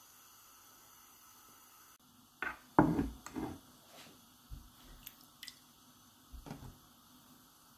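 Soft handling sounds as spring onion stalks and ginger slices are arranged on a whole fish on a plate: a cluster of knocks and rustles about two and a half seconds in, then a few lighter taps, over a faint steady room hum.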